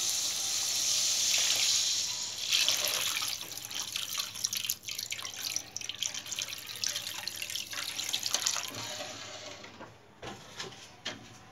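Half a jug of water poured into a pan of hot fried tomato-onion masala: a loud hiss for the first two seconds or so as the water hits the hot oil, then a softer crackling that fades away while a metal spatula stirs the thinned sauce.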